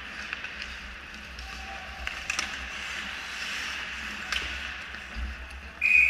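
Ice hockey play heard from behind the net: skates scraping the ice and a scattering of sharp clacks from sticks and puck. Near the end a loud, steady referee's whistle blast starts and holds.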